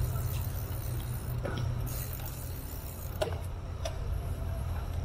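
Steady low rumble of wind and riding noise on the microphone of a moving bicycle, with a few faint clicks.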